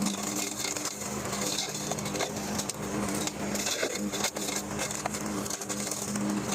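Lawnmower engine running steadily while its blade strikes and chips tree limbs, giving many irregular sharp cracks and knocks over the engine's hum.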